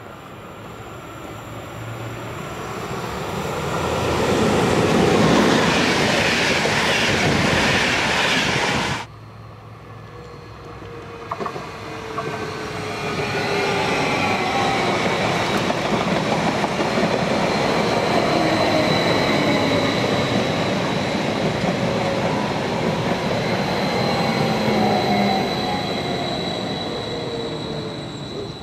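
An electric train passes, growing loud, then cuts off abruptly. After a short lull a Stadler FLIRT electric multiple unit runs past, with a high steady whine and lower tones sliding down in pitch, fading near the end.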